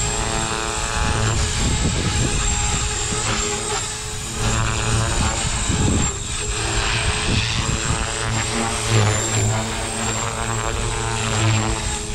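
Blade Fusion 270 electric R/C helicopter flying in stunt (idle-up) mode: its rotors give a steady buzz, with a thin high motor whine on top, and the pitch of the buzz shifts a little as it is flown.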